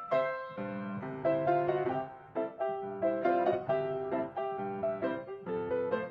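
Background piano music: a gentle melody of short notes played one after another.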